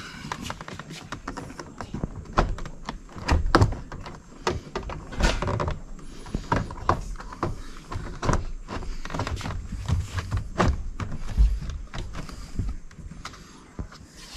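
Irregular clicks, knocks and rattles of a plastic door trim panel being handled and pressed onto a 2011 Ford Expedition's driver door as its clips are lined up and pushed in.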